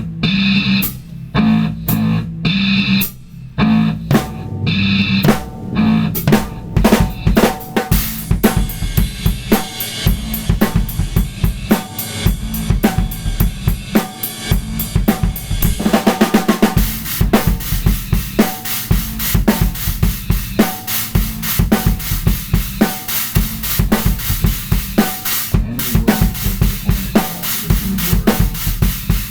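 Drum kit played in an improvisation, kick drum, snare and cymbals, over a repeating recorded backing track. The drums come in a few seconds in, build to busy fills, and settle into a heavier, steady kick-driven groove about halfway through.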